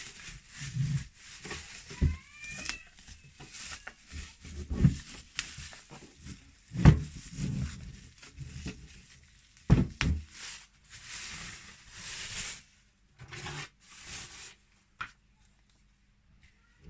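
Packaging being pulled off a new humidifier: plastic wrapping and paper rustling and crinkling in irregular bursts, with a few knocks, two of them louder, as the unit is handled. It goes quiet near the end.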